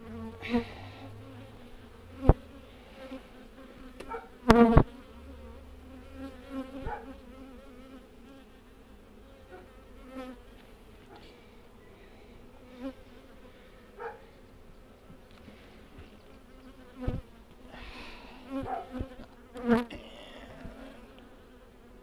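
Honeybees buzzing steadily around an opened hive, with a few sharp knocks breaking in, the loudest a little under five seconds in.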